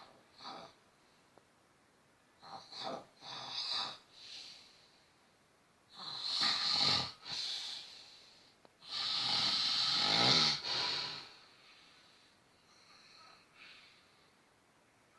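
A man snoring loudly: a string of rasping snores at irregular intervals. The loudest come about six seconds in and again about nine seconds in, where the snore is the longest, before fading to softer ones near the end.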